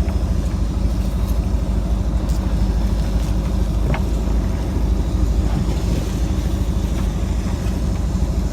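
Fishing boat's engine running steadily, a low rumble.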